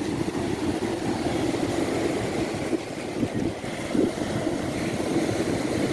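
Churning surf where a rain-swollen river runs into the sea: a steady rush of waves breaking and washing in, with wind on the microphone.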